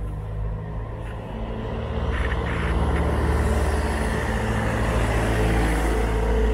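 Road traffic passing close by: a small van and then a small dump truck drive past, engines running over tyre noise, growing louder from about two seconds in.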